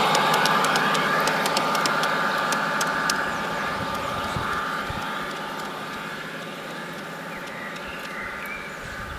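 Garden-scale model train running along outdoor track: a steady whine from the moving train and light clicks of wheels over the rails, fading as it moves away.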